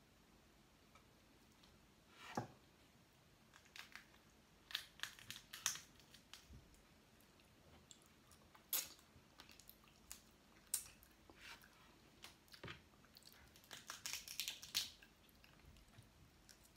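Faint eating sounds of shellfish and crab: scattered clicks, crunches and chewing, with a denser run of crackling near the end.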